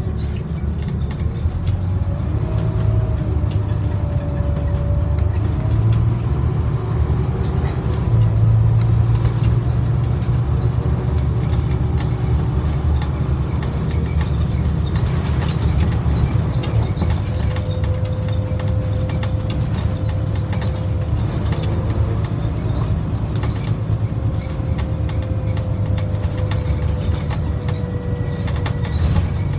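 Scania OmniDekka double-decker bus under way, heard from the upper deck: a steady low engine and road drone with a faint whine that slides up and down in pitch, and frequent light rattles.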